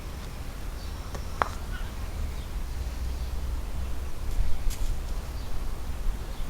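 Wind rumbling on the microphone, with one sharp click about a second and a half in and faint bird calls.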